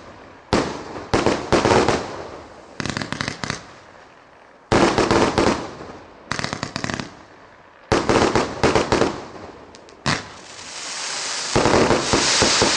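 A 100-shot 1.2-inch firework cake firing in rapid volleys, each a quick string of bangs, with short pauses between them. About ten seconds in, a sustained hissing crackle builds and stays loud, as the crackling-star finale goes off.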